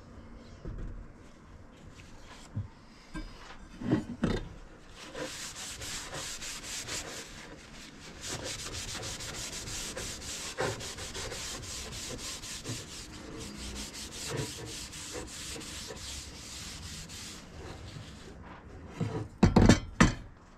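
Paper towel rubbing oil into a wooden axe handle, a steady scrubbing for most of the time, with a few knocks about four seconds in and a couple of loud knocks near the end.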